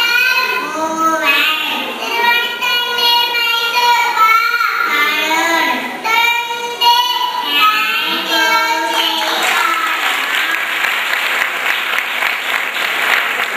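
Two young girls singing a song together into microphones. About nine seconds in the singing stops and an audience applauds.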